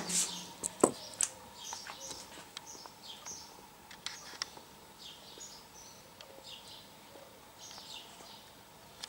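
Small birds chirping in the background, short high chirps repeating every second or so, with a couple of sharp clicks and knocks in the first second.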